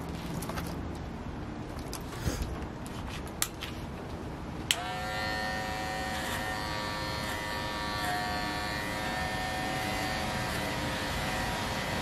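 Electric hair clippers click on about five seconds in and then run with a steady buzz while cutting hair at the side of the head, the pitch wavering slightly as the blades meet the hair. Before that there are only a few light clicks.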